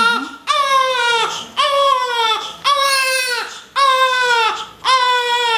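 Newborn baby crying in a steady run of about five cries, roughly one a second, each dropping in pitch as it ends.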